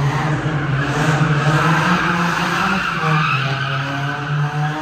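Car drifting: the engine is held at high revs, its pitch rising and falling, while the tyres screech as they slide.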